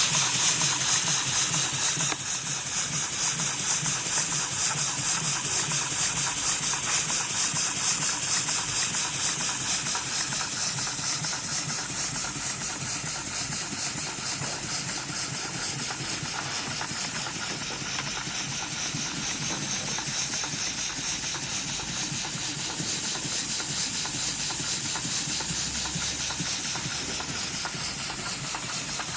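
Small model horizontal double-acting steam engine running on low-pressure compressed air (about 2.5 psi): a steady hiss with a rapid, even beat of exhaust puffs, slightly louder for the first two seconds.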